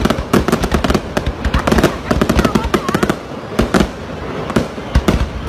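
Aerial fireworks going off in quick succession: dense sharp bangs and crackles, thinning out for a moment past the middle.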